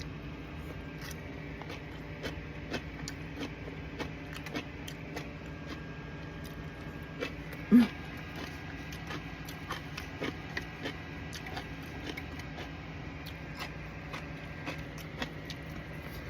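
Close-miked eating sounds: chewing and crunching with small scattered mouth and utensil clicks, over a steady hum. About eight seconds in comes one brief, loud throat sound.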